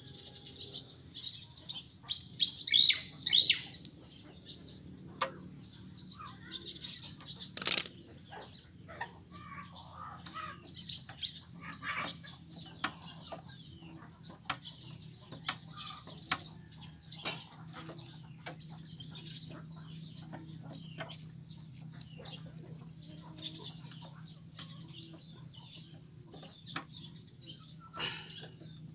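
Birds chirping now and then, with a few louder chirps about three seconds in, over scattered light clicks and taps and a low steady hum.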